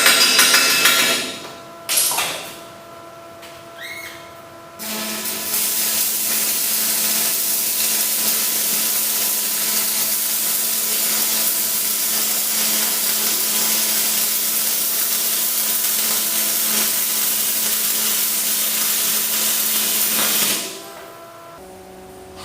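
Stick welding on steel: a steady crackling hiss of the arc for about fifteen seconds, starting about five seconds in and stopping shortly before the end, over a low steady hum. A short burst of noise at the start and a knock about two seconds in come before it.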